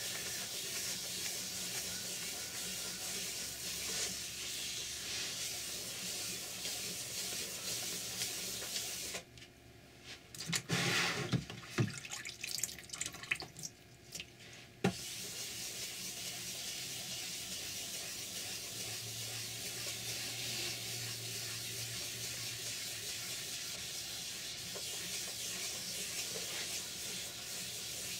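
400-grit sandpaper rubbed by hand over a hard, glossy oil-paint coat, wet-sanding it flat: a steady scrubbing hiss. It stops for several seconds about nine seconds in, with a few brief louder noises while the paper is handled, then resumes about fifteen seconds in.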